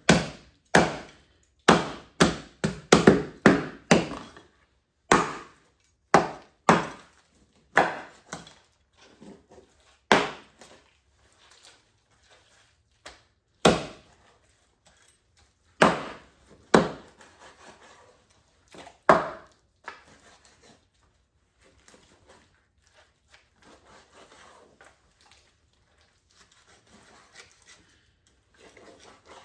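Knife or cleaver chopping fish on a wooden cutting board: a quick run of sharp chops, then slower, spaced chops, fading to faint handling noises for the last several seconds.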